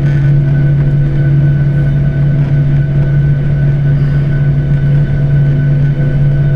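Airliner cabin noise while taxiing: a steady drone of the idling jet engines and air-conditioning, with a strong low hum and a few steady higher tones.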